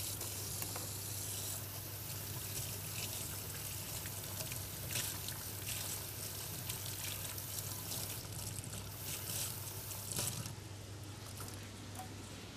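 Pasta sizzling in hot oil in a stainless steel pot on the hob: a steady hiss with a few sharper crackles.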